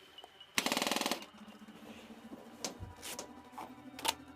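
Airsoft electric gun firing a short full-auto burst, a rapid rattle about half a second long, followed by a few single sharp clicks.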